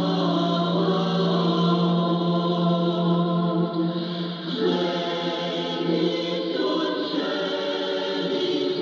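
Choir singing sustained chords of a sacred piece during a Mass broadcast, heard through a longwave AM radio receiver, with the sound thin and cut off in the treble.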